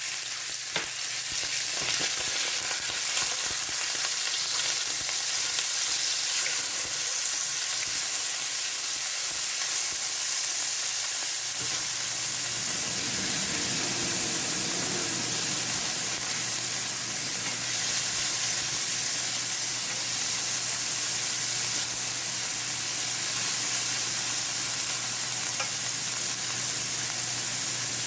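Minced chicken frying in hot oil in a pan, a steady sizzle. A low hum comes in about halfway through.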